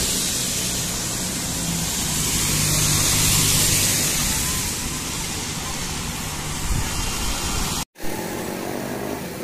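Ride in a small motor vehicle along a wet road: a steady low engine hum under a strong hiss of tyres and wind. The sound drops out for an instant about eight seconds in.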